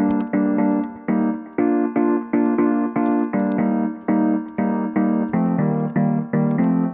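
Background music: piano or keyboard notes played in a steady run of several struck notes a second.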